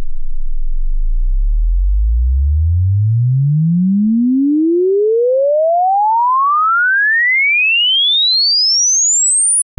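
Speaker-test frequency sweep: a single pure sine tone gliding steadily upward from a deep bass hum to a high, thin whistle over about nine and a half seconds, then cutting off abruptly just before the end.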